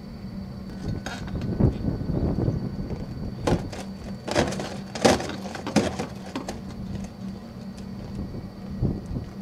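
Handling noise on a camcorder: a run of knocks and rustling clatter, loudest a few seconds in, over a steady low hum.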